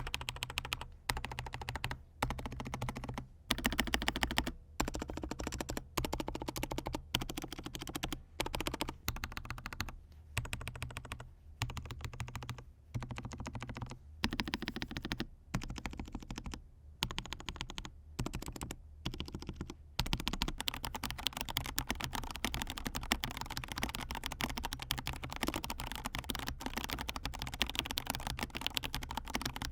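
Typing on a mechanical keyboard with KTT Macaron Orange tactile (non-clicky) switches, keystrokes clacking in short bursts with brief pauses. About two-thirds of the way in it turns into continuous fast typing.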